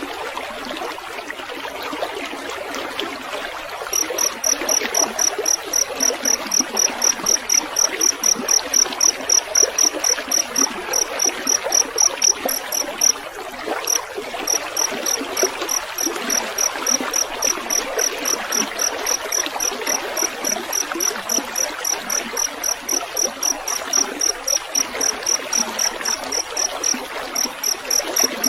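Water trickling steadily, and from about four seconds in a field cricket chirping in a fast, even run of high pulses, about four or five a second, with a brief pause around halfway.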